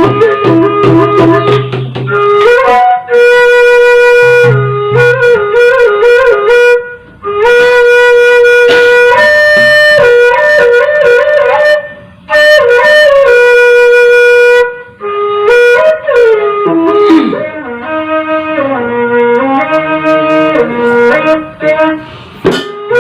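Sasak wayang gamelan music in rehearsal, its melody carried by a wind instrument playing long held notes with wavering ornaments, in phrases separated by brief pauses. Low drum strokes sound near the start and again about five seconds in.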